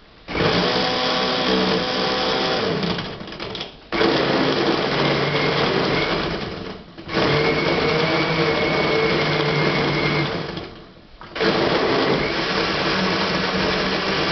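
Countertop blender running, churning ice, banana, strawberry and milk into a smoothie. It drops out briefly three times and starts again, so it runs in four stretches of about three to four seconds each.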